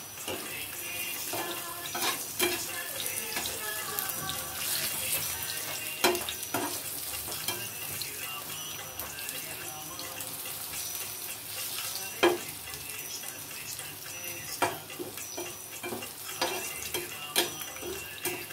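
Plantain slices sizzling steadily as they fry in hot oil in a pan, with a metal perforated skimmer clinking and scraping against the pan several times as the slices are turned.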